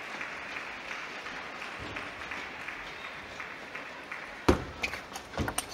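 Steady background crowd noise in an arena, then about four and a half seconds in a table tennis serve and the start of a rally: sharp clicks of the ball off the bat and table in quick succession, the first the loudest.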